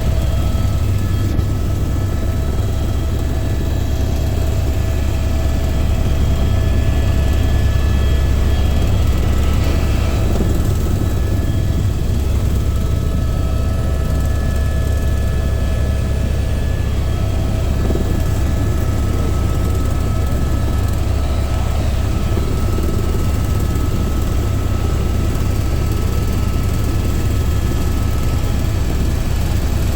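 Helicopter in flight: a steady, loud low drone of the rotor with several steady high-pitched whining tones from the engine over it.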